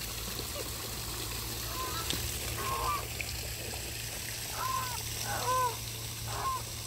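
Waterfowl calling from the pond: a handful of short calls, each a quick rise and fall in pitch, coming more often in the second half.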